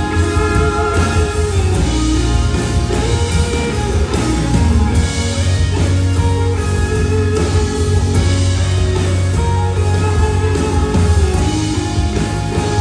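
A live rock band plays an instrumental passage with no vocals, led by electric guitar over a strong bass.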